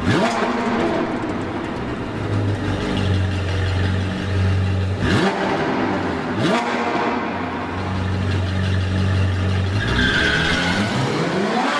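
Honda S2000 engine revving hard under acceleration, its pitch climbing quickly several times between steadier stretches.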